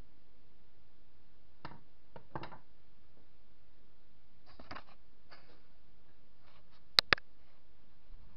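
Handling noises: a few soft taps and clicks of small parts being moved on a workbench, then two sharp clicks in quick succession about seven seconds in.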